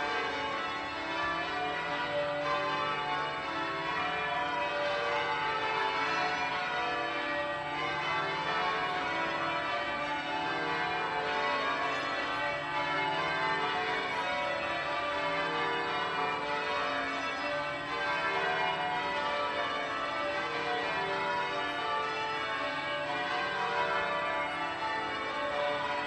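Church tower bells ringing: many bells struck in quick succession, their tones overlapping into a continuous ringing.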